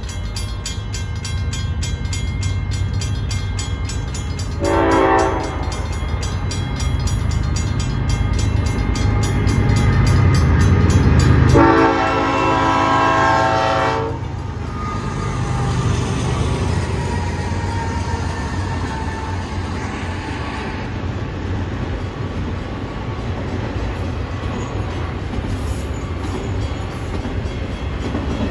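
BNSF freight locomotives approaching with a steady low rumble that grows louder, their hybrid K5HL air horn sounding a short blast about five seconds in and a longer chord about twelve seconds in. After the horn, the double-stack container cars roll past with steady rail noise.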